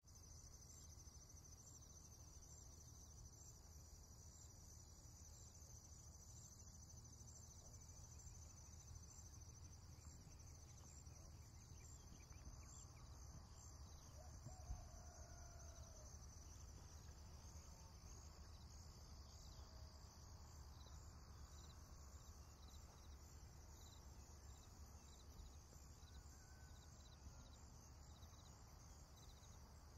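Near silence: a faint, steady, high-pitched insect chirring with evenly repeating pulses over a low hum.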